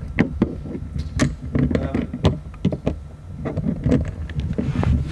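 Handling noise on the camera's own microphone: irregular knocks, clicks and bumps over a low rumble as the camera is moved about.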